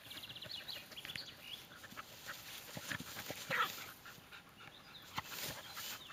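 Two dogs playing in grass, panting with scuffling and rustling, and a brief louder pitched sound about three and a half seconds in.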